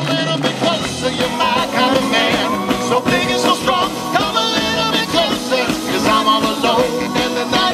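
Live swing band playing a number, with singing over the band.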